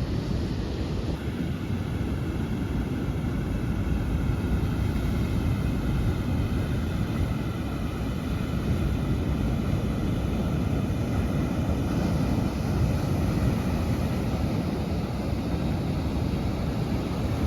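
Steady low rumble of wind buffeting the microphone over the wash of surf at a beach, with a faint hum in the background for most of the stretch.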